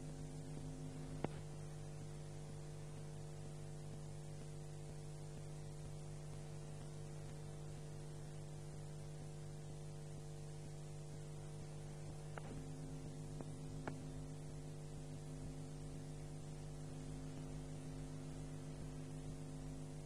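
Steady electrical mains hum with a stack of even overtones, unchanging throughout, with a sharp click about a second in and two fainter clicks a little past halfway.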